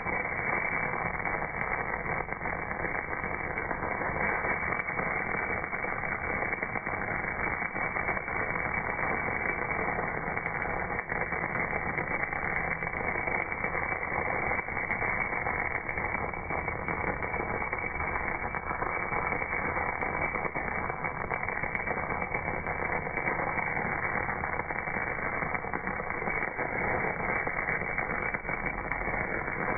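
MAG (gas-shielded wire) welding arc burning steadily on cast iron, a continuous rough hiss with no break. It sounds dull, with no high end.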